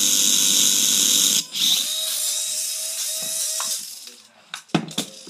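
Electric motor of a toy remote-control car whirring at full speed, cutting out briefly about a second and a half in, then a softer steady whine that fades away about four seconds in. A few sharp clicks near the end.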